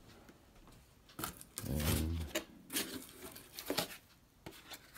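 A cardboard shipping box being handled and its flaps opened: scattered rustling, scraping and knocking of cardboard. A short, louder low sound comes about two seconds in.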